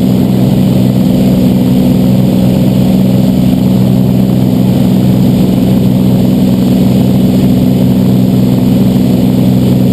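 Cessna 206's six-cylinder piston engine and propeller running steadily in flight, heard loud inside the cabin as an even, unchanging drone.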